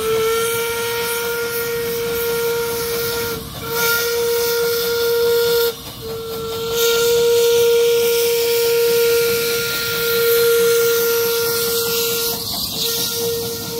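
Whistle of an 1898 Blanc-Misseron steam tram locomotive sounding one long, steady note that breaks off briefly three times, over the hiss of steam as the engine passes close by.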